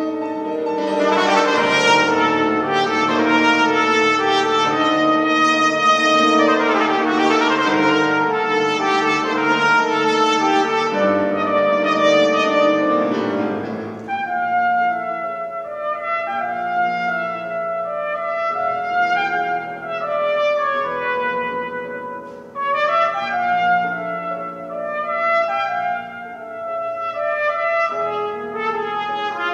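Trumpet with piano accompaniment playing Spanish-style concert music. The first half is a loud, busy passage with rapid sweeping runs up and down. About halfway through it drops to quieter, more spaced-out melodic phrases.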